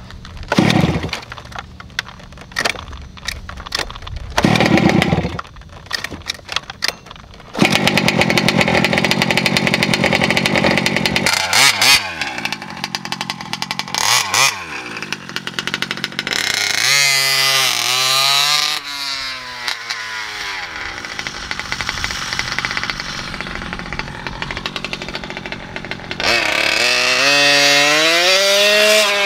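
Kraken VEKTA.5 large-scale RC truck being driven hard on dirt: a loud, steady running noise with its motor whining up and down in pitch as it accelerates and slows. It starts after several seconds of scattered knocks and thuds as it is handled.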